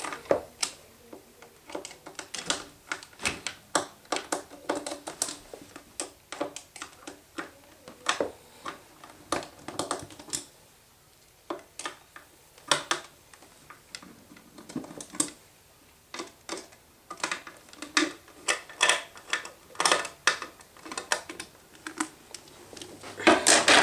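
Irregular small clicks and taps of a screwdriver turning screws and of hands handling parts while the cover of a homemade fire alarm panel is taken off, with a couple of short pauses.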